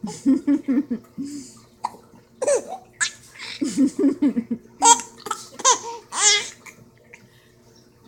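Small child laughing in bouts of quick, high-pitched giggles with short pauses between, ending in a longer high squeal a little past six seconds in.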